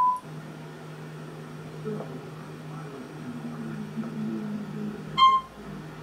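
A low steady hum, with a short, high electronic beep about five seconds in and another just ending as it begins.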